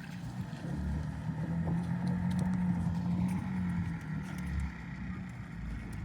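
Boat engine running with a steady hum that grows louder about a second in and eases off again after about three and a half seconds.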